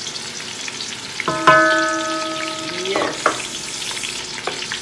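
Chopped onions, bay leaf, thyme and curry powder sizzling as they fry in hot sunflower oil in a pot. There are a few sharp taps, and a steady pitched tone is held for about a second and a half starting just over a second in.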